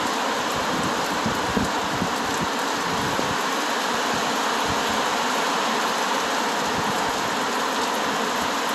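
Heavy rain pouring down: a steady, loud hiss of falling rain with many small drop impacts.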